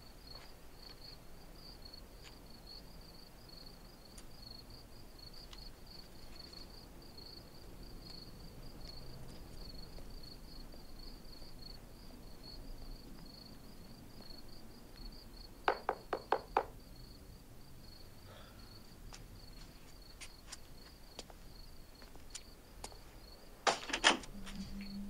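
Crickets chirping steadily in the night air. About two-thirds of the way through there is a quick run of four sharp knocks, and more sharp knocks come near the end.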